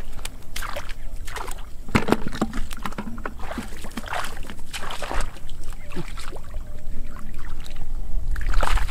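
Bare feet wading through shallow muddy water, with irregular sloshing and splashing; near the end, hands churning the water while groping for fish.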